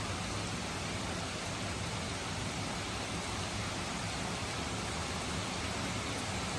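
Steady gentle rain: an even, unbroken hiss with no single drops standing out.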